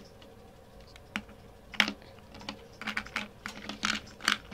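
Handling noise: a dozen or so light, irregular clicks and taps as a hand moves small plastic toy figures and the camera.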